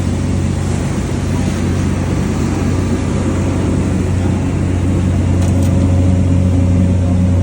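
Engine running steadily under way, with a strong low hum that grows slightly louder partway through.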